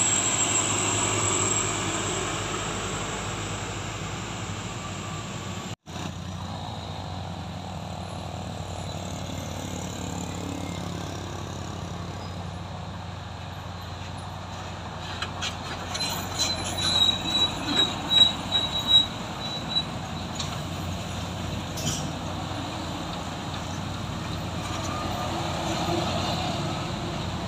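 Heavy diesel trucks running at low speed, a steady low rumble. About two-thirds of the way in comes a few seconds of high metallic squealing with a run of clanks.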